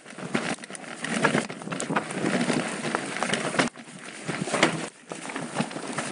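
Mountain bike rolling down a rocky dirt singletrack: tyres crunching over dirt and stones, with irregular rattles and knocks from the bike.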